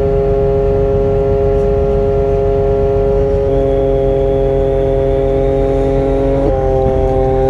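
Crane's engine and hydraulics running steadily under load while a container cabin is lowered on its slings, a continuous humming drone whose pitch drops slightly about six and a half seconds in.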